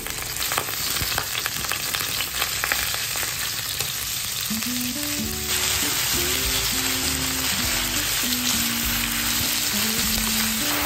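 Thin-sliced pork frying in oil in a nonstick frying pan, a steady sizzle while wooden chopsticks spread and stir the meat, with a few light clicks early on. The sizzle gets louder and fuller about halfway through.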